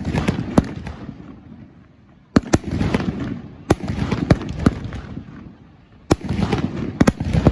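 Aerial fireworks bursting: sharp bangs in three quick clusters, near the start, about two and a half seconds in and about six seconds in, each cluster trailing off in a dense crackle that fades over a second or so.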